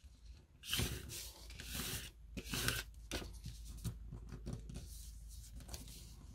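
Paper being folded and creased by hand: three short rustling swishes in the first three seconds, then faint steady rubbing as the folds are pressed flat.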